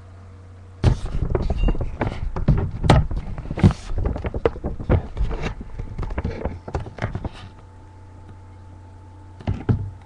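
Handling noise as the camera is moved about: a quick run of knocks, bumps and rubbing from about a second in until past the middle, then two more knocks near the end. A steady low hum runs beneath.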